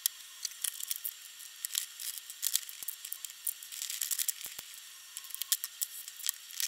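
Irregular small clicks and taps of steel nuts being spun off the bolts of a 3D-printed mould by hand and set down on a cutting mat, along with handling of the mould.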